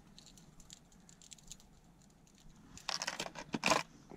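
Hard plastic rattlin lures clicking and clattering against a plastic tackle box as one is picked out: faint scattered clicks, then a short burst of rattling clatter near the end.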